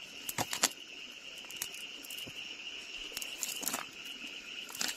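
A steady high-pitched insect chorus trilling without a break, with scattered clicks and rustles from a wet fishing net being dragged and handled over riverbank pebbles.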